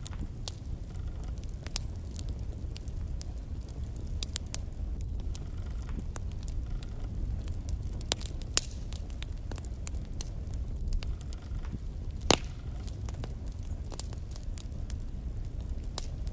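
Wood fire burning in a fireplace: a steady low rumble of the flames with irregular sharp crackles and pops of the logs, one louder pop about twelve seconds in.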